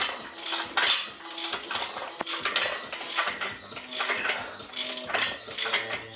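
Hand-tightening a harmonic balancer puller's centre screw with a wrench against the crankshaft, to draw the crank hub off an LT1 V8: repeated metallic clicks and clinks a few times a second at uneven spacing.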